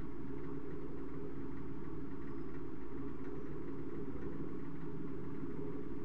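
A steady low hum with one constant tone in it, even in level throughout.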